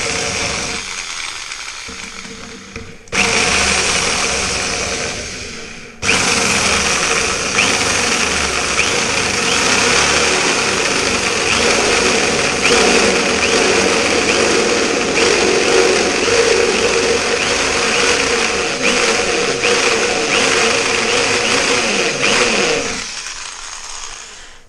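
Electric hand drill with a step drill bit cutting into stainless steel sheet. It runs in spells: the first trails off just after the start, it starts again about three seconds in, and from about six seconds it runs steadily, winding down near the end.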